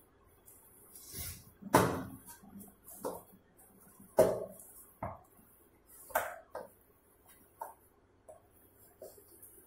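Dough being kneaded by hand in a steel bowl: irregular dull knocks and thumps as the knuckles press the dough down and the bowl shifts against the counter, the loudest about two and four seconds in.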